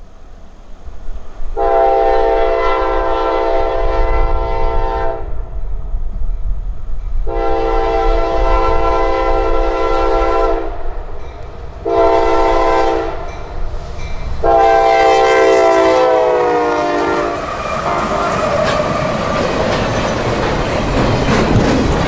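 CSX freight locomotive's multi-chime air horn sounding the grade-crossing signal: two long blasts, a short one and a long one, the last dropping in pitch as the locomotive passes. Then the rumble and clickety-clack of double-stack container cars rolling by.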